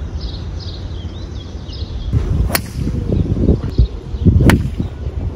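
Sharp clicks of a golf iron striking the ball, twice, about two seconds apart, over a low rumble of wind on the microphone.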